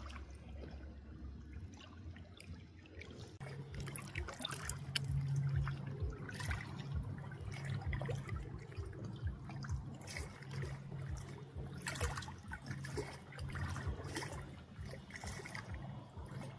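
Water trickling and dribbling, with many small splashes and drips. A low steady hum joins about three seconds in.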